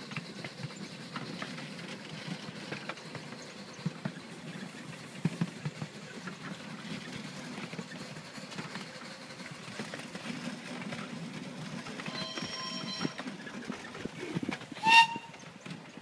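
Carriages of a 7¼-inch gauge miniature railway rolling over the track: a steady low rumble with scattered clicks. Near the end the steam locomotive's whistle sounds for about a second, then gives a shorter, louder toot about two seconds later.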